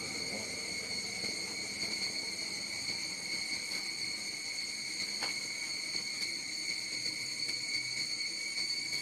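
Insects chirring in a steady, high-pitched drone that neither rises nor falls.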